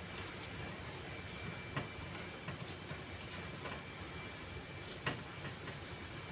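Dried fish grilling in a wire grill basket over a charcoal fire: a low steady hiss, with two sharp clicks about two seconds in and again about five seconds in.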